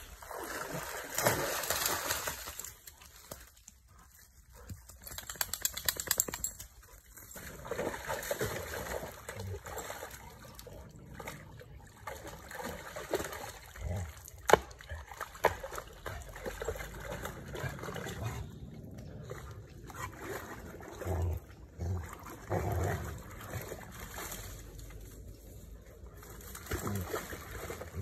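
A dog wading and splashing in a shallow stream, the water sloshing in irregular bursts as it paddles and pulls at a stick, over the steady trickle of the stream. A single sharp crack about halfway through.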